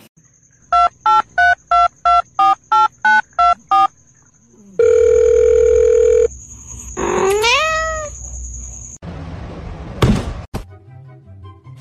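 Telephone keypad touch-tones dialing about a dozen digits in quick, even succession, then a steady tone held for about a second and a half.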